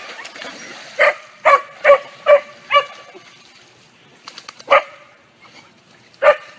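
A dog barking: a quick run of five barks about half a second apart, starting about a second in, then two single barks spaced out after it.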